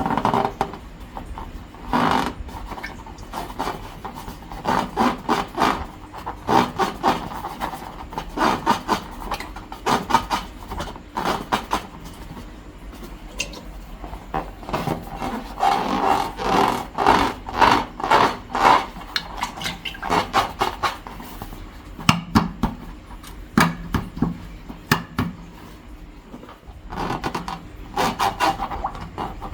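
Long rubber balloons and slime being handled, giving repeated rubbing, scraping strokes in irregular bursts, with a few quieter pauses between them.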